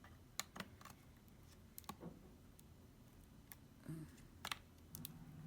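Faint, irregular small clicks and taps from fingers working at the opened laptop's internals, trying to free the battery.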